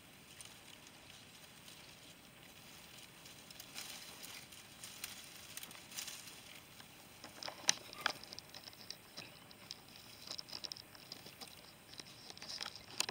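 Leaves and twigs of a bush rustling and crackling as a kitten climbs through the branches, in scattered small crackles with two sharper snaps about eight seconds in.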